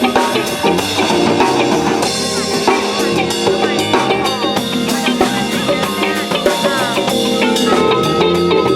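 Live funk band playing: a drum kit with kick and snare over bass lines, with a few sliding notes on top.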